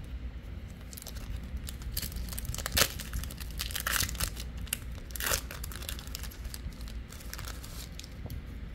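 Foil booster-pack wrapper crinkling and tearing open in short bursts, loudest about three seconds in.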